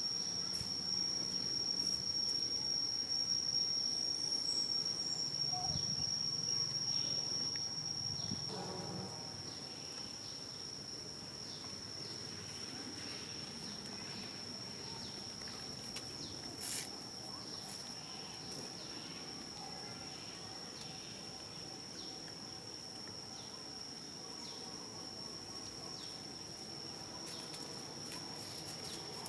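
An insect singing one steady, unbroken high-pitched tone over faint outdoor background noise, with a single sharp click a little past the middle.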